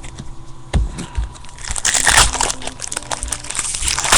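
A foil trading-card pack wrapper being crinkled and torn open. The crinkling starts about halfway through, after a few light taps.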